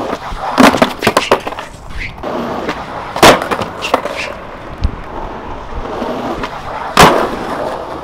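Skateboard wheels rolling on rough concrete, broken by several sharp board clacks and slaps from tricks and landings, the loudest about half a second, three seconds and seven seconds in.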